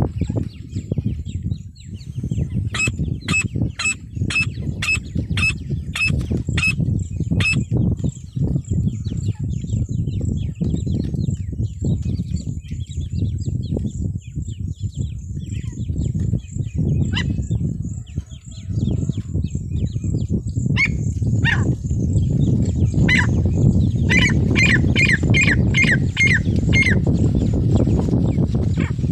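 Female francolin (teetar) calling: a run of about nine short, evenly repeated notes, roughly two a second, a few seconds in, and a quicker run of about seven near the end. A steady low rumble and faint scattered chirps run underneath.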